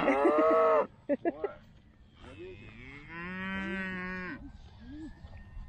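Cattle mooing: a loud moo that ends just under a second in, then a second, quieter and longer moo from about two to four and a half seconds in.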